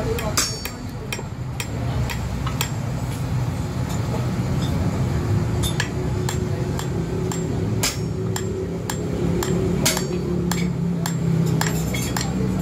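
About a dozen sharp, irregular knocks of a hand tool striking a new wooden hammer handle, roughly one every second, over a steady low hum.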